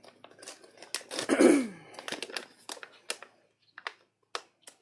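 Plastic snack bag crinkling and clicking as it is handled and pulled at to get it open, with a short breathy sigh about a second in.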